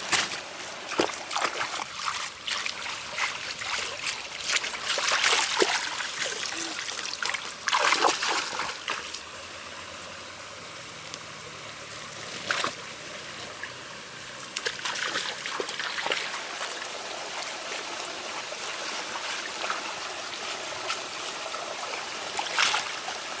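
Water splashing and trickling: irregular sloshes and splashes for the first several seconds, then a steadier trickle with an occasional splash.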